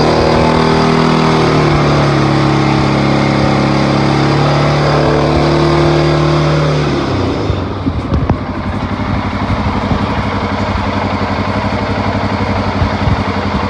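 Electric radiator cooling fan of a 2015 CFMOTO CForce 500 ATV running steadily over the idling engine, then winding down with a falling pitch about seven seconds in and stopping, leaving the engine idling. The fan is cycling on and off as it should now that the faulty coolant temperature sensor has been replaced, holding the engine at about 180–190°F.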